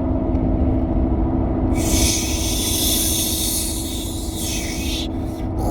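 A steady low rumble with a constant hum underneath. A loud high hiss comes in about two seconds in and cuts off about three seconds later.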